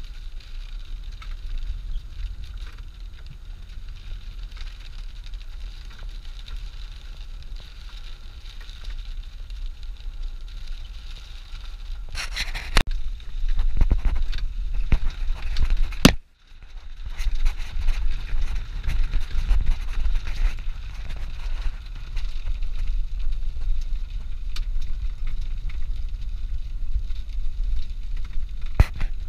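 Off-road vehicle driving over a rough, wet dirt track, heard from inside the cab: a steady low engine and road rumble with scattered knocks and rattles from bumps. The loudest knocks come a little before halfway and just past halfway, the last followed by a short drop-out.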